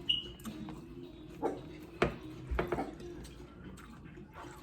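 A dog gives one short high whine just after the start, amid scattered clicks and smacks of people eating seafood by hand.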